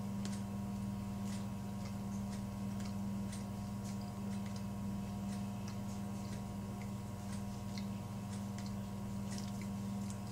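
Steady low electrical hum with faint, irregular light ticks over it: room tone with no speech.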